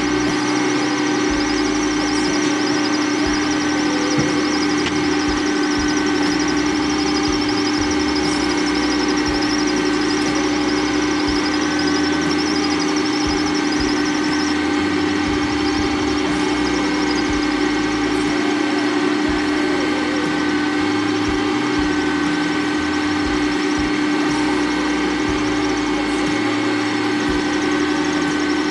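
Mambo kitchen robot's motor running steadily with its lid on, mixing in the steel jug: a constant hum with a high whine over it.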